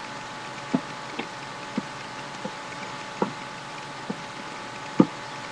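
A series of short, irregular clicks and taps, about seven in five seconds, the loudest near the end, over a steady hiss.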